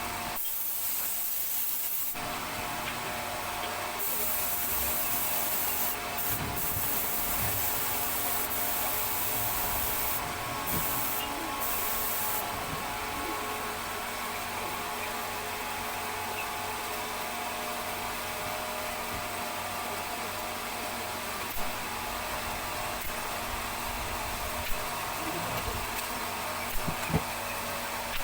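Steady sanding of wood, a continuous rubbing noise, with a few sharp knocks in the second half.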